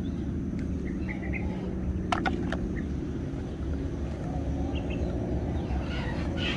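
Outdoor background: a steady low rumble and hum with faint short bird chirps, and two sharp clicks about two seconds in.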